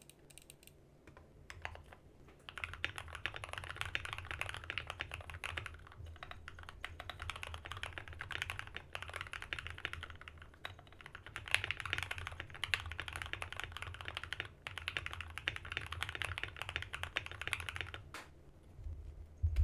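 Typing on a foam-modded Keychron K6 Aluminum mechanical keyboard with lubed Gateron KS3 Black switches on an aluminum plate and ASA-profile keycaps: a few single key presses, then fast runs of keystrokes in bursts of a few seconds with short pauses between. A low thump near the end.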